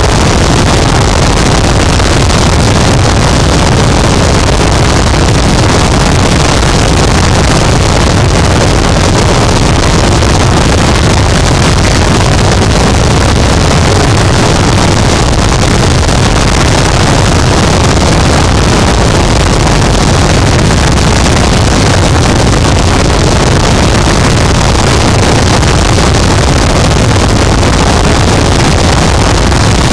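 Harsh noise wall: a dense, unchanging wall of heavily distorted static noise, very loud and heaviest in the low end, with no rhythm, pitch or variation.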